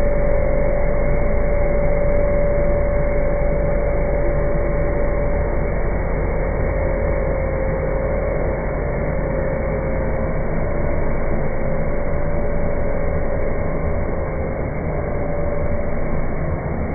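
A CNC router machine running: a steady whine over constant mechanical noise, with no pauses or changes.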